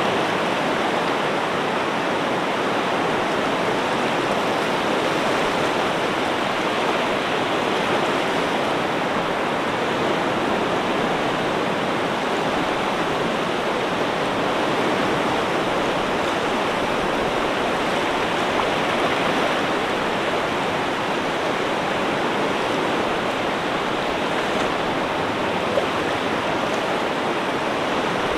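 Steady rushing water, an even roar with no rise and fall of separate waves breaking.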